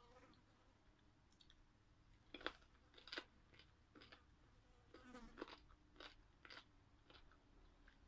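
Faint wet chewing and lip smacks of a person eating steamed chicken with her fingers, irregular short smacks with the two loudest about two and a half and three seconds in.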